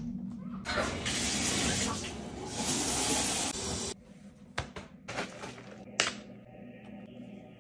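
Tap water running into a sink for about three seconds, stopping abruptly, followed by a few sharp clicks of handling.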